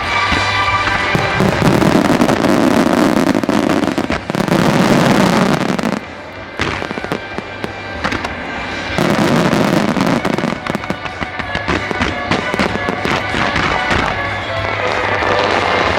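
Starmine fireworks barrage: shells bursting and crackling in rapid succession, with music playing, and a brief lull about six seconds in.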